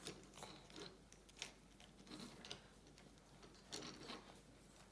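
Faint, scattered gritty crunches and small scrapes of dirt and a toy dump truck being handled and tipped.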